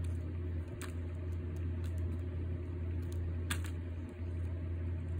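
A steady low hum, with a few faint clicks as diagonal cutting pliers squeeze a soft cookie. The pliers smash the cookie more than they cut it.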